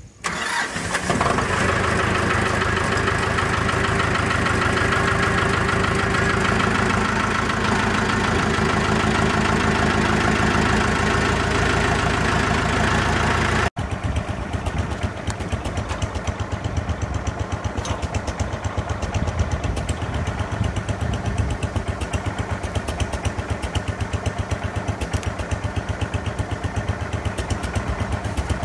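Compact tractor engine cold-started, catching almost at once and then running steadily. After a cut about halfway through, an engine idles with a fast, even beat.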